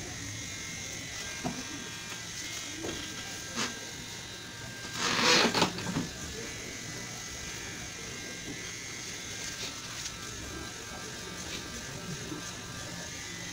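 Tattoo machine buzzing steadily, with one loud hiss lasting about a second about five seconds in.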